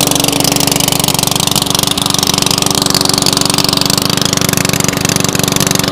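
Walk-behind lawn mower's small single-cylinder engine running steadily at an even speed, freshly started on 91% isopropyl alcohol instead of gasoline.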